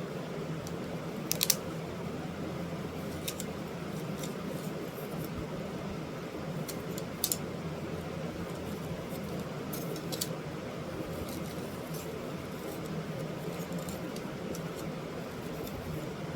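Steady low room hum with a scattering of small sharp clicks, the loudest about a second and a half in and another about seven seconds in.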